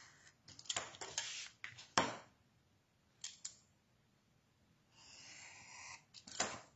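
Craft knife cutting along a metal ruler into cardstock: soft scraping strokes, with clicks and taps of the ruler and knife being set and moved. The loudest is a sharp tap about two seconds in.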